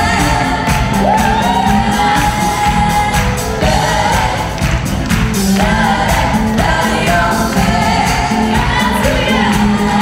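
Live pop band playing, with several women singing together into microphones over drums, electric bass guitar and keyboards.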